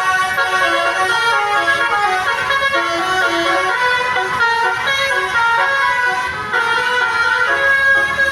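Basuri telolet horn on an Indonesian bus: a multi-tone musical air horn playing a tune as a run of stepped notes, several pitches sounding together.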